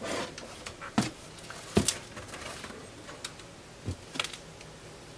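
Four or five sharp knocks and clicks as the opened Korad KA3305D power supply's metal chassis is tipped over and handled. A loose piece of a burnt-out diode is loose inside the case.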